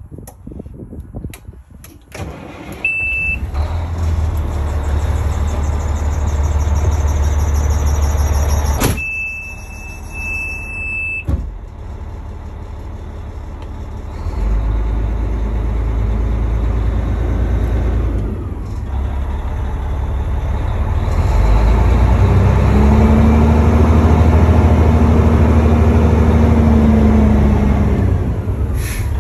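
Detroit Diesel Series 60 inline-six turbo diesel of a 1996 Pierce Quantum fire pumper running, heard from inside the cab, its engine speed rising and then easing off near the end. A high steady beep sounds briefly about three seconds in and again for about two seconds near the ten-second mark.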